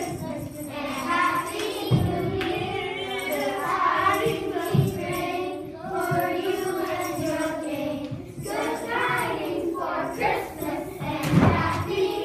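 A group of young children singing a song together, with a few dull bumps along the way.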